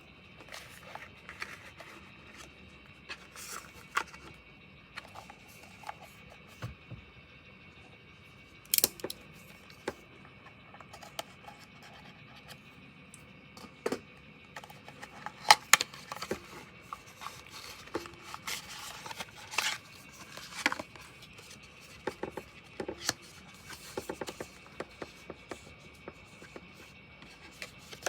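Irregular clicks, taps and short scrapes of small objects being handled, the sharpest about a third and two-thirds of the way through, over a faint steady high whine.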